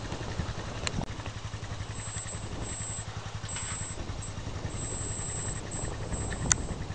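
Utility vehicle's engine running steadily at low speed, a constant low hum. A sharp click about a second in and a louder one near the end.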